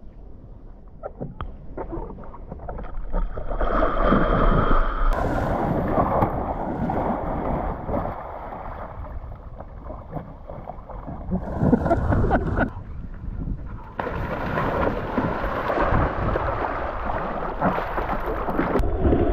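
Water sloshing and gurgling, heard muffled with the microphone dipped under the lake surface. The sound changes abruptly several times, between stretches of quieter rumble and louder rushing.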